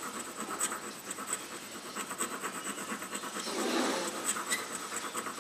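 Hand-forged steel graver having its face polished on a Japanese water stone: quick, rhythmic scraping strokes of hardened steel across the stone.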